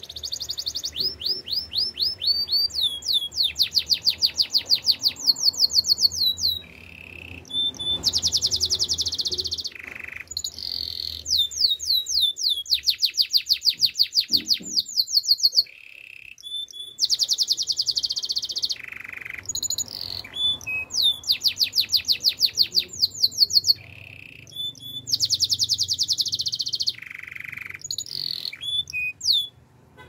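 Domestic canary singing a long song: phrases of rapid, evenly repeated high trilling notes, each run lasting a few seconds, broken by short pauses and a few single whistled notes.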